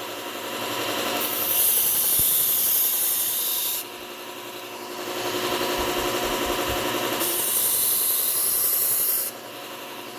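Knife blade ground against the 3M Cubitron P120 belt of a running Bucktool low-speed belt sander: two passes of grinding hiss, each about two and a half seconds, over the steady hum of the sander, raising a burr along the edge.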